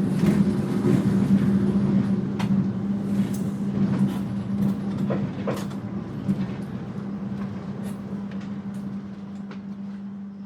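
Interior ambience of an Indonesian executive-class train carriage on the move: a steady low hum and rumble with a few sharp clicks and knocks. It gets gradually quieter through the second half.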